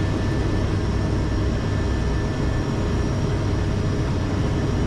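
Steady drone of an airliner's turboprop engines and propellers, heard from inside the cockpit during an approach to landing: a constant low rumble with a few fixed whining tones over it.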